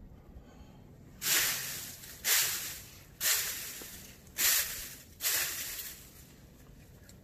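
Dry forest-floor leaves scratched or raked five times, about once a second, each a sharp rustling hiss that fades quickly. This is leaf rustling of the kind turkey hunters use to imitate turkeys scratching and feeding.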